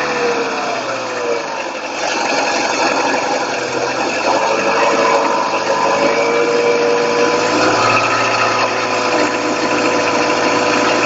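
Car engine running at about idle with the tapping of knocking hydraulic valve lifters in the cylinder head; engine speed wavers a little.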